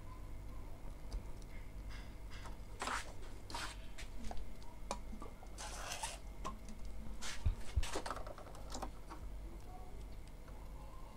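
Scattered light clicks and short scuffs of plastic parts being handled: an Epson ink-tank printer's ink damper and its rubber tubing, worked by hand, over a steady low hum.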